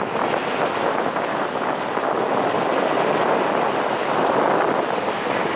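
Go-kart driving at speed, with a steady rush of wind over the kart-mounted camera's microphone covering the kart's running noise.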